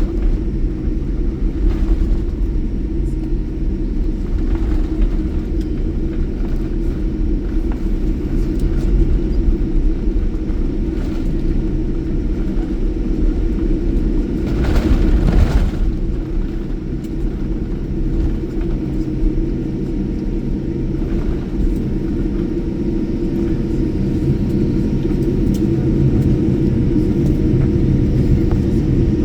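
Steady low rumble inside an airliner's cabin on the ground before takeoff: engines and cabin air running, with a brief louder swell about halfway through.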